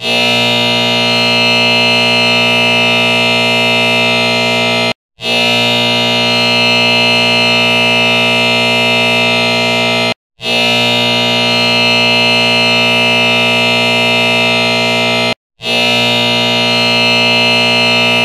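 Timer alarm going off as the countdown hits zero: a loud, steady, rich tone in long blasts of about five seconds, each broken by a brief gap.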